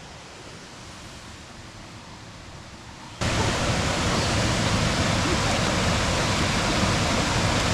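Steady rush of falling water from a creek and waterfall, moderate at first, then much louder and fuller after an abrupt jump about three seconds in.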